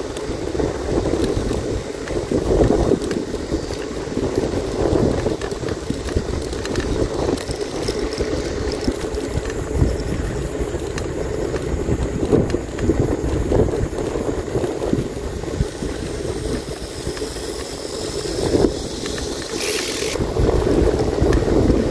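Wind buffeting the microphone over the rolling noise of a bicycle being ridden, with a short hiss near the end.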